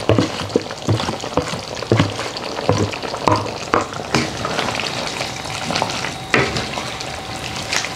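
Shrimp and potatoes in coconut-milk curry sizzling in a metal wok on the stove. A wooden spatula stirs them and knocks and scrapes against the pan in irregular strokes.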